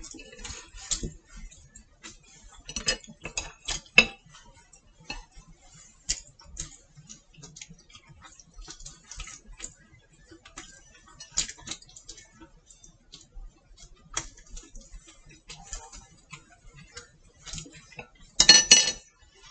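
Wooden chopsticks clicking and scraping against a ceramic plate as food is picked up: scattered light taps, with a louder burst of handling noise near the end.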